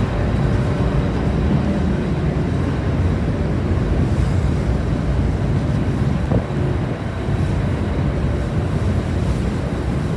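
Steady low rumble of the car ferry M/V Kaleetan's engines running, with a rushing wind-like noise over it.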